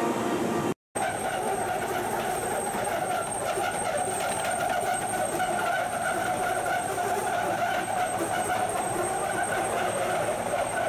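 Steady vehicle engine and traffic noise at a bus stop, following a brief dropout just under a second in.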